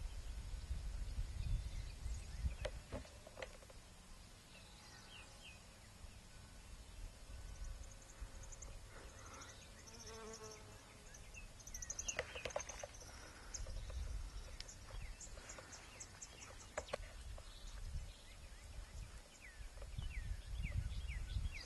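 Outdoor ambience: wind gusting on the microphone in low rumbling swells, with short high bird chirps now and then.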